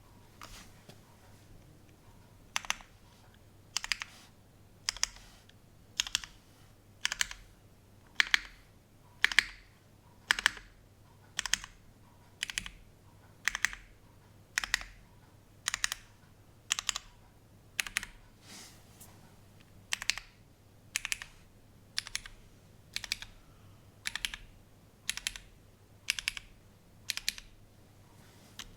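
Single keystrokes on a gasket-mounted polycarbonate Kohaku keyboard with lubed, broken-in Cherry MX Black linear switches and GMK doubleshot keycaps, pressed one at a time about once a second in an even, unhurried rhythm.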